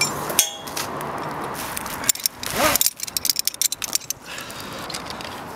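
Metal abseiling hardware (carabiners and a descender) clinking and rattling as a rope is handled, with a dense run of clicks about three seconds in, over a steady hiss.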